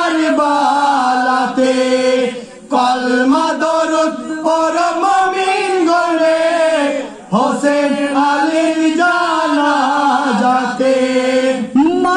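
Male voices chanting a marsiya, a mourning elegy, in long drawn-out melodic phrases, with two short pauses for breath.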